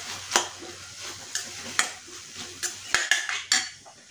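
Steel spatula stirring paneer bhurji in a stainless steel kadhai, scraping and clinking against the pan at an uneven pace, over a light sizzle from the food in the pan. The stirring stops near the end.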